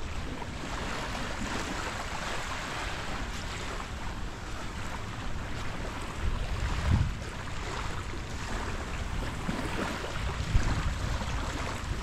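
Surf washing on a sandy beach, with wind buffeting the microphone in gusts about halfway through and again near the end.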